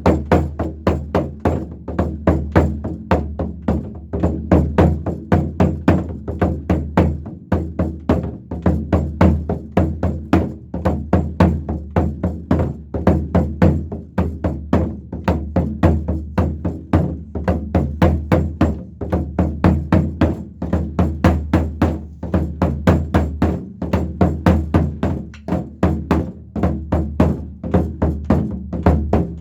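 Nanta drum struck with sticks in the 'horse-hoof' rhythm, rapid strokes running on without a break.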